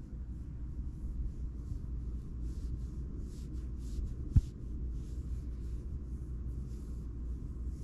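Scottish Fold cat purring steadily while its chin is scratched, with the soft rustle of fingers in its fur and a single sharp click a little over four seconds in.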